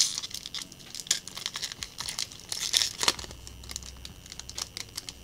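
Foil wrapper of a Magic: The Gathering booster pack crinkling and tearing as it is pulled open by hand, in a run of sharp crackles.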